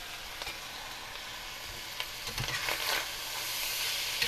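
Food sizzling in cast-iron skillets on a stovetop, stirred with a spatula about halfway through. The sizzle grows louder near the end.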